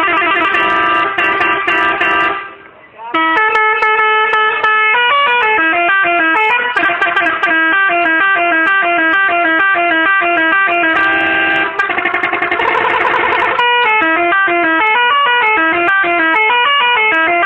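An angkot minibus's telolet horn, a multi-tone musical horn, playing a fast tune of stepping notes, with a short break about two and a half seconds in.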